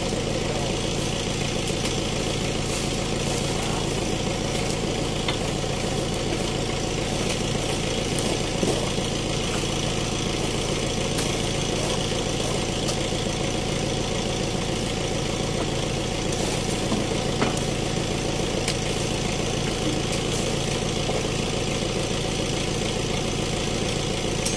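Truck's diesel engine idling steadily, with a couple of faint knocks over it.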